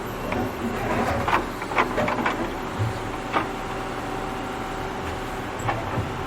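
Digging machine (tractor excavating) with its engine running steadily, and a cluster of sharp clanks and knocks in the first three and a half seconds, two more near the end.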